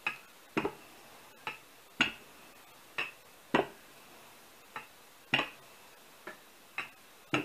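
Wooden rolling pin knocking and clacking as it is rolled back and forth over dough on a wooden table: about a dozen short, sharp knocks at uneven intervals.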